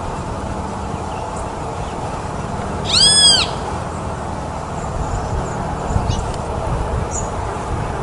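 A mockingbird gives one short, clear, mewing call that rises and falls, about three seconds in. It sounds over a steady low background rumble, with a few faint high chirps later.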